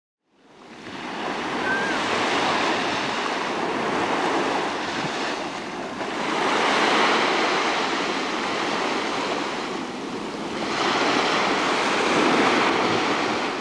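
Sea waves breaking and washing on a shore. The sound fades in about half a second in, then swells and eases in surges roughly every five seconds.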